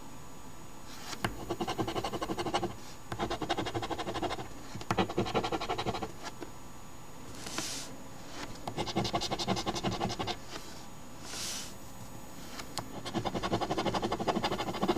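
A coin scratching the coating off a scratch-off lottery ticket in five runs of quick scraping strokes, with two short hisses in the pauses.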